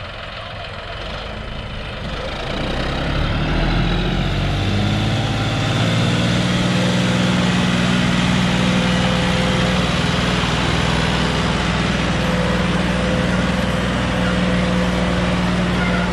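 John Deere 5065E tractor's diesel engine running steadily as it pulls a disc harrow through soil. It grows louder about three seconds in and then holds at an even pitch.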